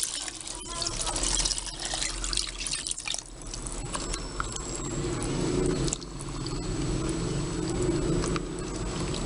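Water poured from a glass bowl into a glass pot of rice and chicken, then a ladle stirring the watery rice, with a few light clinks against the glass.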